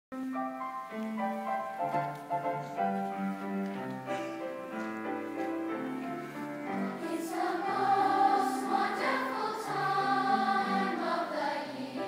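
Middle school choir singing with grand piano accompaniment, the voices swelling louder about seven seconds in.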